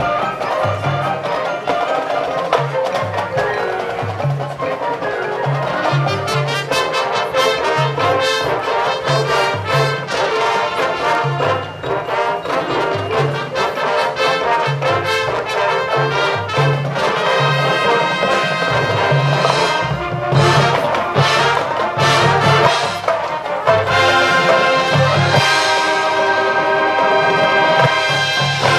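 High school marching band playing: brass (trumpets and trombones) over a low pulsing bass line and drums, building to louder held full-band chords in the second half.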